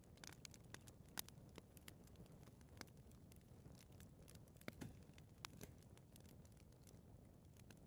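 Fireplace fire crackling faintly: irregular sharp pops and snaps over a low, steady rumble of flame, with the strongest pops about a second in and again near the middle.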